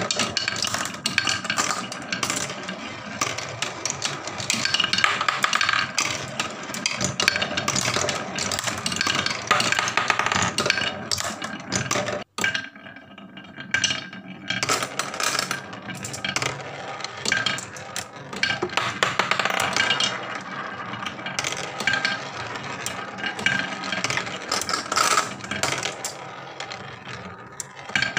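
Marbles rolling and rattling down carved wooden zigzag chutes of a wooden marble run, a steady clatter of clicks and knocks as they swing through the curves. The sound cuts out for an instant about twelve seconds in, then the clatter carries on.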